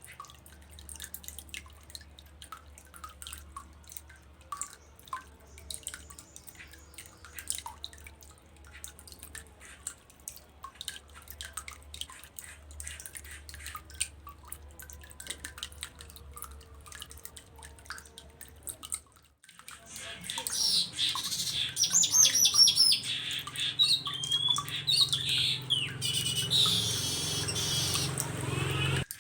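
Faint, rapid scattered clicks and ticks for about nineteen seconds, then after a brief break a streaked weaver (manyar kembang) sings loudly: quick chattering notes sweeping up and down, running into a drawn-out buzzy wheeze near the end, over a steady low hum.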